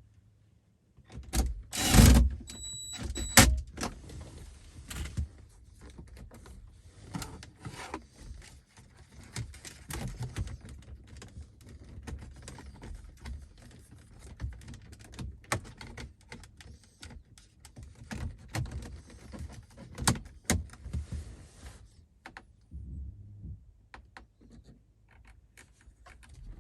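Irregular clicks, knocks and rattles of hands working on the car's dashboard and console, with two loud knocks about two and three and a half seconds in and a short high tone between them.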